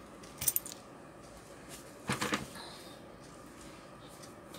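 Handling sounds on a workbench: a sharp click about half a second in, then a short knock and rustle about two seconds in, over faint steady room tone.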